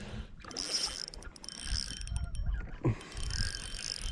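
Fishing reel being cranked, a whirring broken by clicks, as a hooked smallmouth bass is reeled in.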